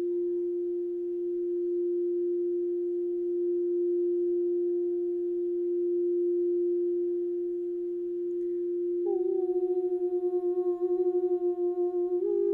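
A singing bowl sounding a steady pure tone. About 9 s in, a second, slightly wavering tone close in pitch joins it, and the two beat against each other in a rapid wobble. Near the end the pitch steps slightly higher.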